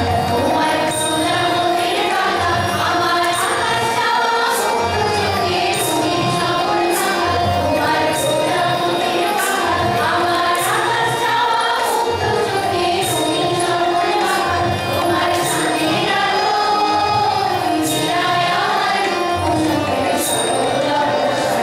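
Live song sung by a group of voices, accompanied by regular hand-drum strokes and light jingling cymbal strikes.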